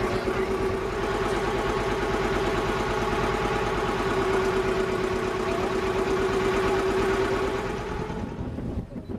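An engine running steadily with an even hum, fading away about eight seconds in.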